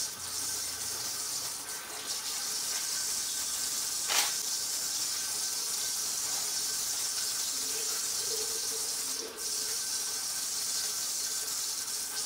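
Water running steadily from a tap into a washbasin, a continuous hiss, with a single sharp click about four seconds in.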